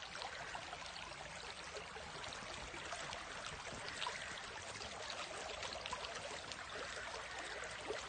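Shallow stream flowing, a steady rush of rippling water with small splashes ticking through it.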